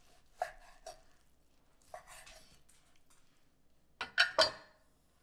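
A chef's knife cutting through a sirloin tip roast on a wooden cutting board, with a few light knocks and a short scrape of the blade against the board. About four seconds in comes a louder clatter of three quick knocks as the knife is set down on the wooden board.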